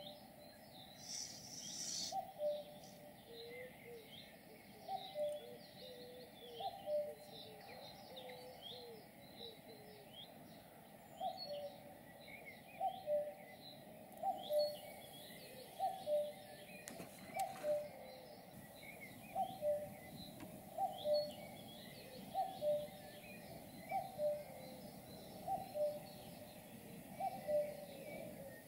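Birds calling: one bird repeats a low two-note call, higher note then lower, about every second and a half, over many short high chirps from smaller songbirds.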